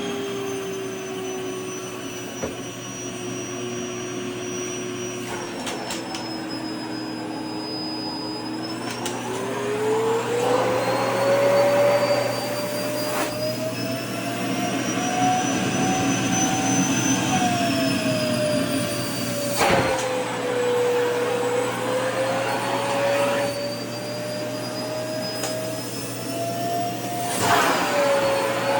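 Vacuum cleaner running continuously, its motor whine sliding slowly down, then rising and falling in pitch as the suction is loaded by a skirt's fabric at the nozzle. There are louder rushes of air and rustling near the middle and again a few times toward the end.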